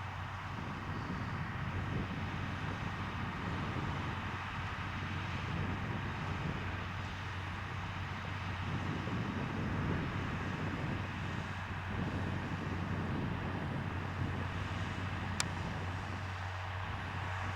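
Tractor engine running steadily, a constant low hum under a rushing mechanical noise, with one short sharp click near the end.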